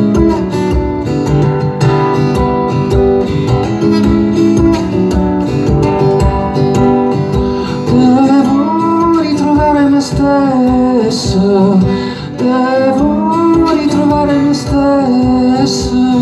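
Acoustic guitar strummed solo, amplified live, with a man's voice singing a melody over it from about halfway through.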